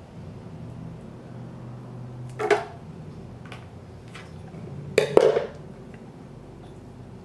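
A pair of scissors is handled and set down on a desk after cutting a thermal pad, making two short knocks about two and a half and five seconds in, the second louder. A low steady hum runs underneath.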